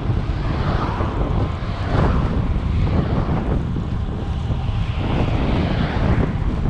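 Wind buffeting the microphone of a rider moving at speed on a road bike: a steady rumble with gusts swelling every second or two.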